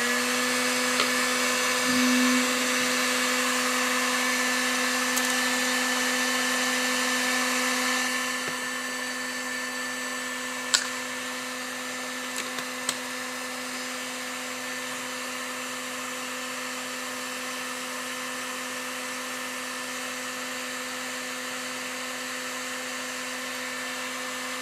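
Electric heat gun running on its high setting: a steady fan-motor hum with rushing air. The air noise eases slightly about eight seconds in, and a single sharp click sounds a little after that.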